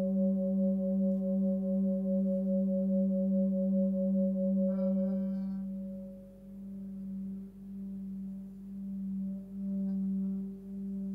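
Forged Sun Moon singing bowl, 19.8 cm and tuned to about 193 Hz (G), ringing with a steady deep tone and a pulsing overtone above it. About five seconds in a brief bright contact from the mallet sets off higher overtones. The tone then drops in level and swells and fades in waves as the mallet is worked against the bowl.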